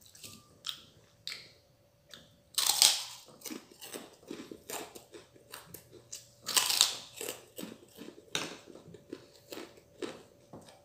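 A person eating close to the microphone: wet chewing clicks with two louder crunchy bites, about three seconds and seven seconds in.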